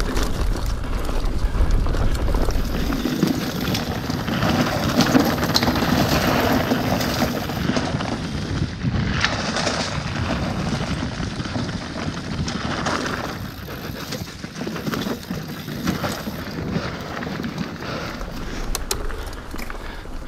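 Mountain bike riding fast downhill on a dirt trail: knobby tyres rolling and crunching over dirt and roots, with the chain and frame rattling over bumps. Wind buffets the camera microphone for the first few seconds.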